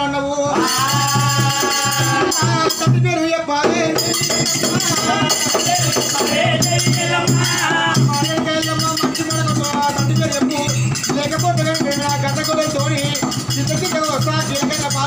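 Oggu Katha folk ballad music: a voice singing over a steady drum beat, with jingling metal percussion throughout.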